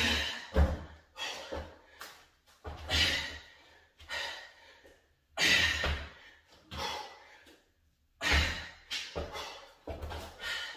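A man breathing hard through a set of dumbbell plank rows: forceful exhales and gasps about once a second, some starting with a dull thud.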